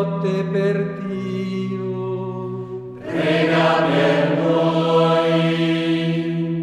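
Background music with long held notes over a low sustained note; about three seconds in, a fuller, brighter layer comes in.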